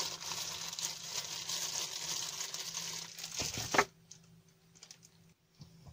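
Plastic bag crinkling and rustling as it is handled. The rustle stops abruptly about four seconds in, leaving only a faint steady hum.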